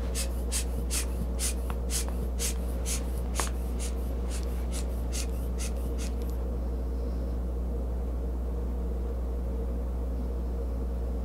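Rubber inflation bulb of a manual blood-pressure cuff being squeezed about twice a second, each squeeze a short puff of air, some fourteen in all; the pumping stops about six seconds in, leaving a steady low hum.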